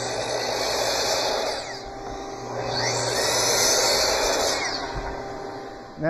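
Makita LS1018 10-inch sliding compound miter saw making two crosscuts through cypress boards, each about two seconds long with a short pause between. The motor whine rises at the start of each cut and winds down at the end.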